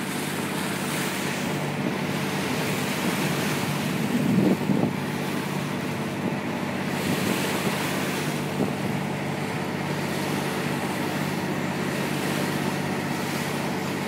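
Fishing boat under way: its engine running steadily under the rush and splash of the bow wave breaking, with wind on the microphone and a louder low rumble about four and a half seconds in.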